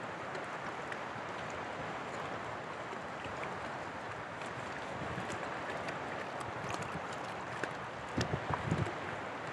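Shallow seawater lapping and washing steadily, with a few short low thumps close together near the end.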